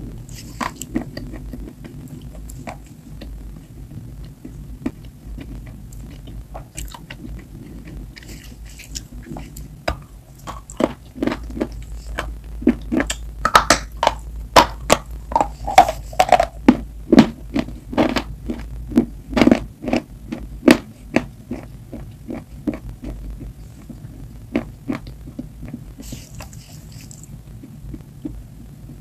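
Close-miked crunching and chewing of a hard white chunk of food bitten between the front teeth. Loud, sharp crunches come thick and fast from about ten to twenty-one seconds in, with quieter chewing before and after, over a steady low hum.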